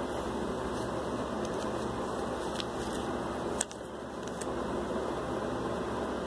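Steady fan-like background hum, with a few faint paper-handling clicks as a paper booklet's page is turned, the sharpest a little past halfway.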